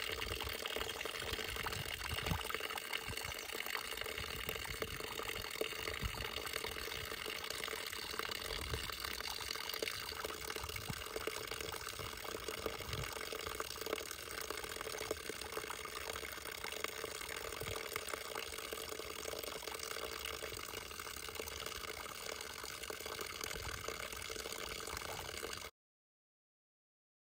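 A steady rush of running water with irregular low thumps throughout. It cuts off suddenly shortly before the end.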